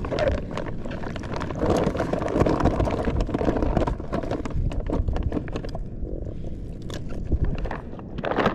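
Irregular clattering knocks over steady wind and water noise.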